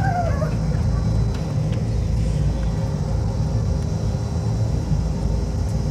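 Steady low rumble of indoor hall ambience, with a brief high-pitched voice in the first half second.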